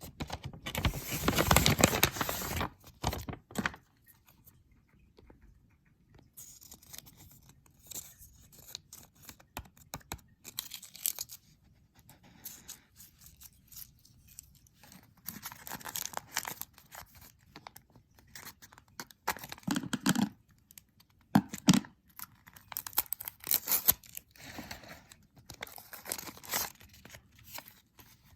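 Plastic blind-bag wrapper being torn open, a loud ripping in the first few seconds, followed by intermittent crinkling and rustling of the packaging as it is handled, with two soft dull thuds about two-thirds of the way through.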